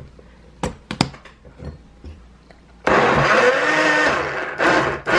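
Pioneer Woman Vintage Floral personal blender: a couple of clicks as it is handled, then about three seconds in the motor starts and runs loudly, blending a fruit smoothie with its pitch wavering under the load. Just before the end it cuts out for a moment and starts again.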